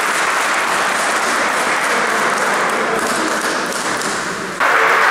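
A group of people clapping and applauding in a large sports hall. Near the end it cuts abruptly to a louder stretch of applause.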